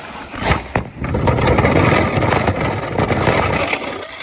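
Toy remote-control car driving, its small electric motor and gears whirring as it runs across the floor, after a couple of sharp clicks near the start.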